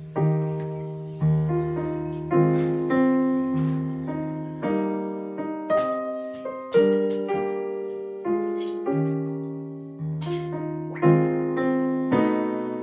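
Background piano music: a slow tune of single notes and chords, each struck and then fading, a new one roughly every second.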